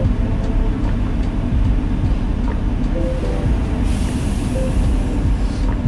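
Semi truck's engine and road noise heard inside the cab while driving on the highway, a steady low rumble. A hiss rises over it about four seconds in and fades near the end.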